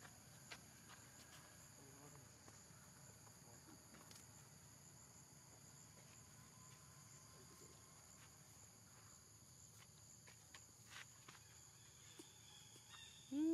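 Near silence with a faint, steady, high drone of insects and a few faint clicks. Right at the end a short loud call begins.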